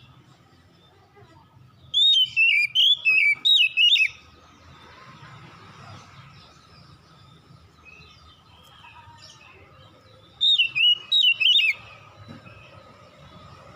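Oriental magpie-robin (kacer) singing: two loud bursts of rapid, sliding whistled notes, one about two seconds in and another about ten seconds in, with quiet between.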